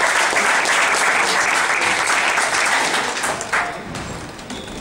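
Audience applauding with dense clapping that dies away about three and a half seconds in.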